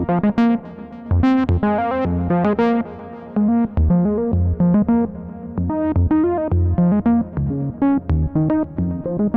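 AJH Synth MiniMod Eurorack modular synthesizer playing a rhythmic pattern of short, plucked-sounding notes over a bass line.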